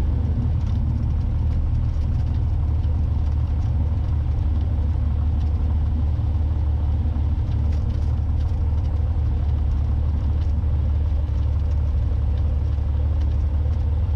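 Cessna 182T's six-cylinder Lycoming engine and propeller running steadily at low taxi power, a constant low drone heard inside the cabin.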